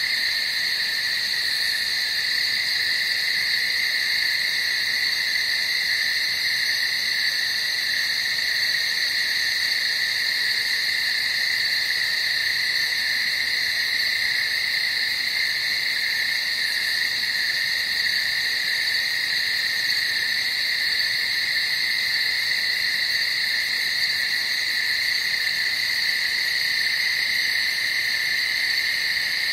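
Steady, unbroken night chorus of calling animals: a constant high drone at two pitches that never pauses.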